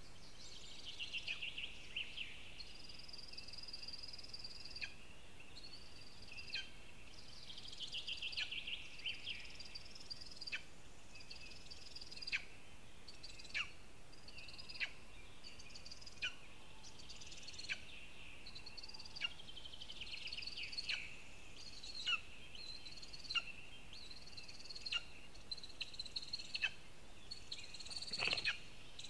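Lesser spotted eagles at the nest calling: a short, sharp, falling call repeated about once a second, with bouts of fast trilling and thin whistled notes from other birds in the forest. Near the end comes a brief rush of wing noise close to the microphone as one eagle takes off.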